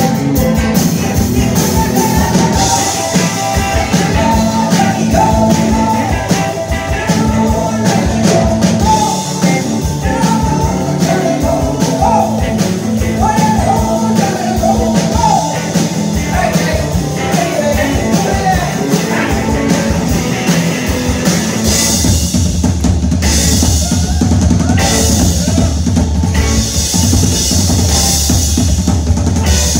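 Live rock and roll band with acoustic guitar, electric guitar and drum kit playing loudly, with fast lead guitar lines over the beat. About three quarters of the way through, the guitars drop out and the drums carry on alone into a drum solo.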